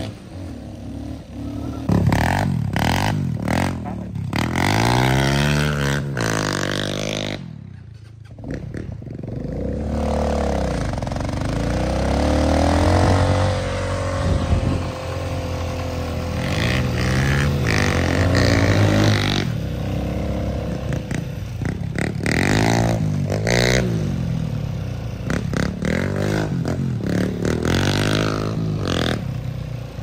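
A 200 cc dirt bike's engine under way, its note rising and falling again and again as the rider accelerates and shifts. It drops away about eight seconds in and picks up again about two seconds later.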